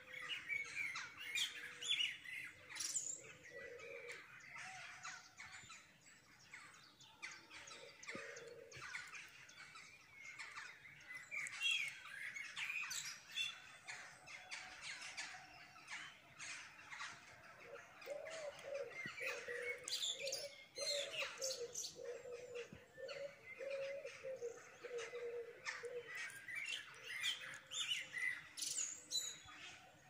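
Many songbirds twittering and chirping, with dense, overlapping high calls throughout. A lower, wavering call runs underneath in stretches, longest in the second half.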